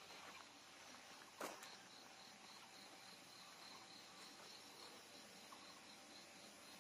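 Faint insect chirping: a high note pulsing evenly about four to five times a second, with one sharp click about a second and a half in.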